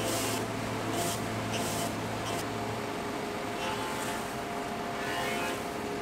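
Hammer A3 jointer-planer running as a board is fed across its cutterhead, giving a steady machine noise.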